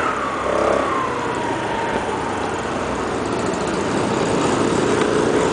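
Motor scooter engine running under the rider, with wind and road noise. Its whine drops in pitch over the first couple of seconds and climbs again near the end.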